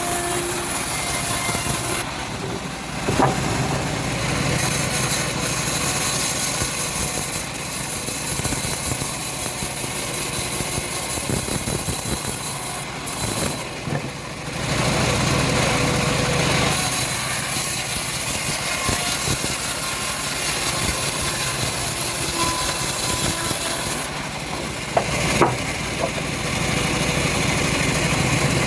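Home-built engine-driven bandsaw sawmill running steadily as it saws through a teak log. A sharp knock comes about three seconds in, and a louder one near the end.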